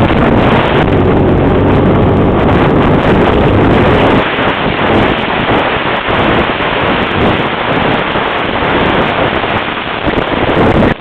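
Honda Rancher 350 ATV's single-cylinder engine running steadily at speed, mixed with heavy wind buffeting on the microphone. The engine note is clearest for the first few seconds; after that the wind noise turns choppier and gustier.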